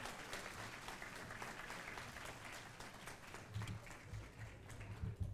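Audience applauding: a dense patter of many hand claps that thins out toward the end. A few low thumps sound in the last couple of seconds.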